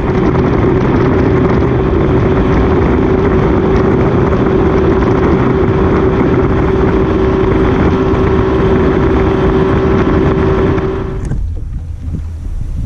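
2004 Mercury 150 EFI outboard, a two-stroke V6, running steadily at speed as the bass boat planes across the lake: one steady engine tone over a rush of wind and water. It cuts off about eleven seconds in, leaving only quieter wind and lapping water.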